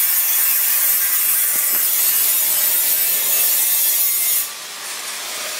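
Power grinder grinding metal with a steady, loud, high hiss that cuts off about four and a half seconds in, leaving a quieter hiss.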